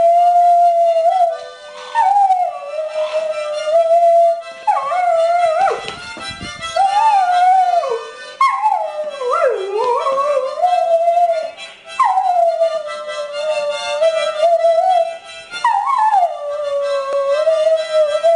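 A dog howling along to a harmonica tune, in several long drawn-out howls that swoop up and fall back down, set against the harmonica's steady notes.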